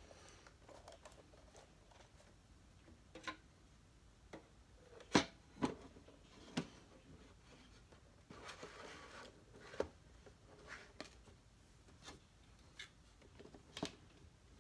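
Cardboard Funko Pop box and clear plastic box protector being handled: scattered light clicks and taps, with a brief rustle as the box slides into the protector about eight seconds in.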